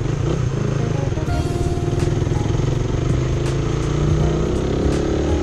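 Suzuki motorcycle engine running under way with wind rush, its note climbing steadily from about a second in as the bike accelerates. Music plays underneath.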